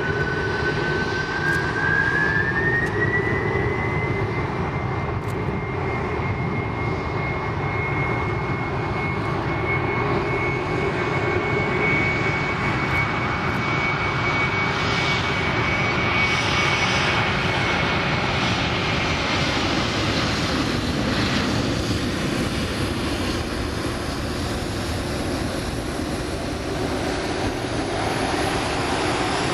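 Boeing 747-400's jet engines spooling up to takeoff power and pushing the jumbo jet down the runway on its takeoff roll. A whine rises in pitch over the first few seconds, then holds steady over a loud, even engine noise.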